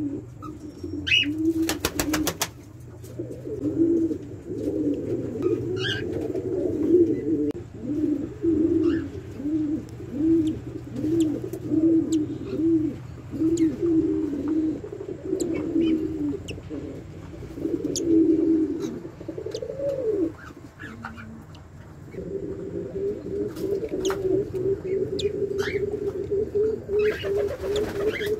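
Doves cooing over and over in low, repeated phrases, with a few short high chirps from other birds.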